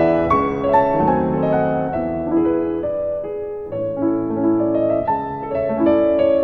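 Background piano music: a melody of struck notes over lower held chords.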